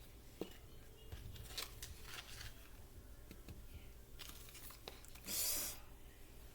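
Faint close-up mouth sounds of someone chewing microwaved cornstarch: small crunches and clicks. About five and a half seconds in there is a brief hiss.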